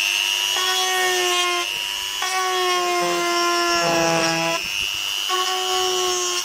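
Handheld rotary tool with a grinding-stone bit running at a steady high whine, grinding open osmosis blisters in a fiberglass boat hull below the waterline. A lower, fuller tone comes and goes three times over the whine.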